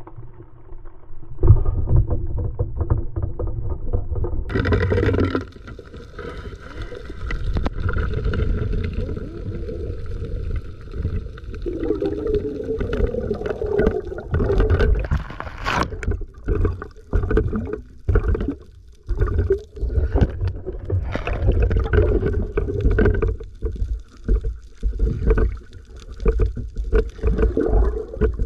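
Muffled underwater sound picked up by a camera in its housing: a low rush of water with gurgling, jumping louder about a second and a half in, then broken by irregular knocks and scrapes.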